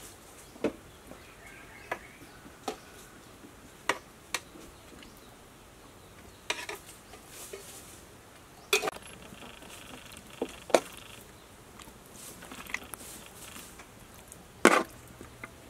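Metal kitchen tongs clicking and knocking against a metal cooking pot and a wooden tray as pieces of cooked pork intestine are lifted out; about ten sharp, separate knocks at irregular intervals, the loudest near the end.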